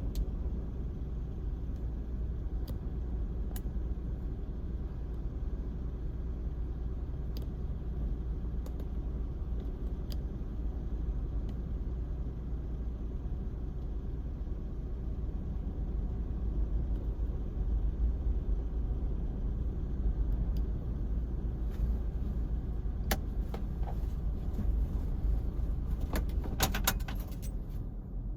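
Steady low rumble of wind on the microphone and the typhoon-swell surf at the beach, with scattered clicks and a quick run of clicks and knocks near the end as the camera is handled.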